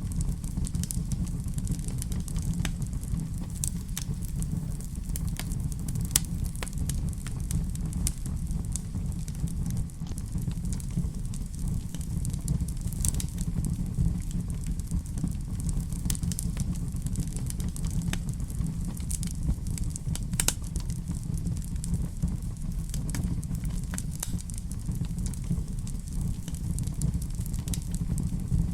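Wood fire burning in a fireplace: a steady low rumble with frequent sharp crackles and pops scattered throughout.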